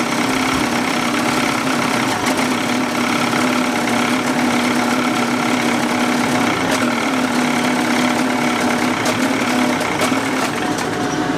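Two-stroke outboard motor idling steadily on a stand.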